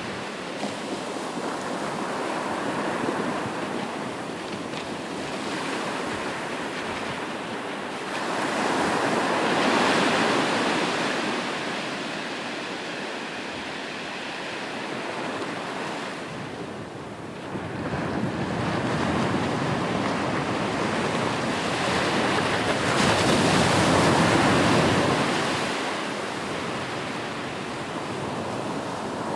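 Sea waves washing onto a shore: a continuous rushing surf that swells and fades, with two bigger waves building about a third and two thirds of the way through.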